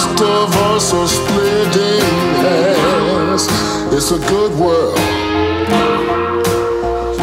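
Background music: a song with guitar accompaniment and a singing voice, including a wavering note about three seconds in and a long held note near the end.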